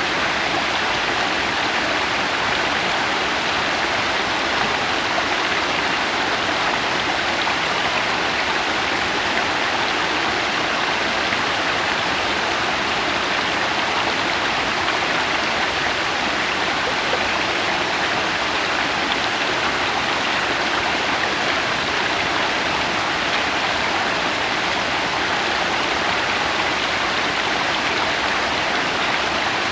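Waterfall pouring and splashing in a loud, steady rush of water, even and unchanging throughout.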